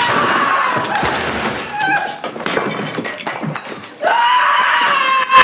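A person's voice in long, held screaming cries: one trails off at the start and another starts abruptly about four seconds in. Irregular knocks and thumps fall in between.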